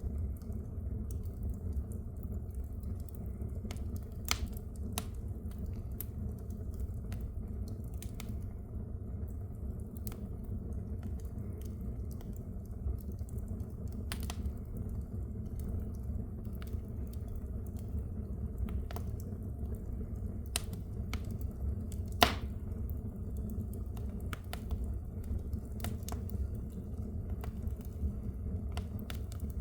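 Wood fire burning in a fireplace: a steady low rumble of the flames with scattered sharp crackles and pops, one louder pop about two-thirds of the way through.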